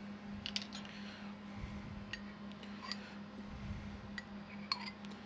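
Light clicks and taps as a mustard jar and its plastic cap are handled and mustard is tipped into a ceramic bowl, over a low steady hum.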